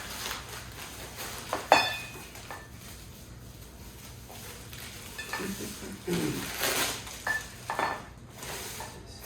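Metal office-chair parts and hardware clinking and knocking as they are handled: one sharp, ringing clink a little under two seconds in, then a few lighter clinks later on.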